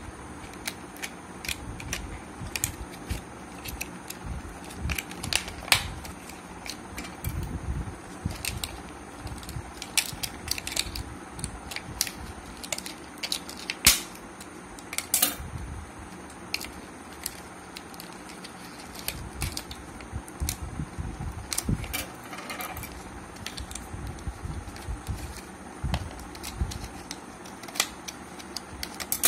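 Clear plastic blister packaging being pried at by hand and cut with scissors: irregular clicks, crackles and snips of stiff plastic, some much louder than others.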